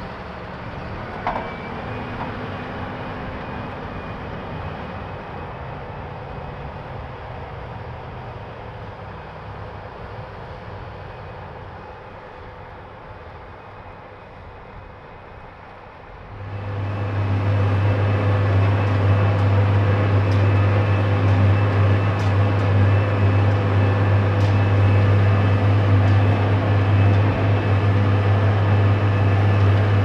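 Rába-Steiger 250 articulated tractor's six-cylinder diesel engine working under load while pulling a subsoiler, with a short squeak about a second in. The engine fades steadily as the tractor moves away, then about halfway through it turns much louder, a steady drone with a strong low hum, as heard from inside the cab.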